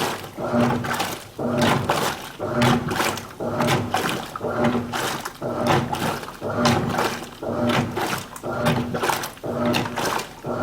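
Washing machine agitating on its delicate cycle: the motor hums in short, evenly spaced bursts, about one a second, each with a swishing surge as the agitator turns.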